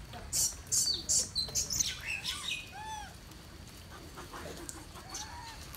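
Short animal chirps: a run of brief, noisy scuffling bursts in the first two seconds, then two rising-and-falling chirping calls, about three and five seconds in.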